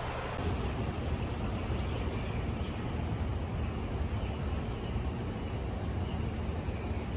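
Steady low outdoor rumble with no clear single event.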